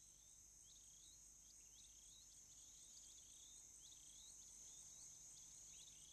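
Faint outdoor insect sound: a steady high-pitched drone with short upswept chirps repeating about twice a second.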